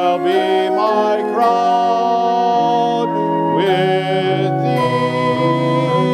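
A hymn sung with instrumental accompaniment: long held notes that move to a new chord every second or so.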